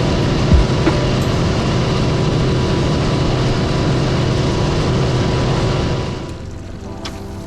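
Boat's outboard motor running under way, with steady wind and water noise. About six seconds in the level falls off sharply.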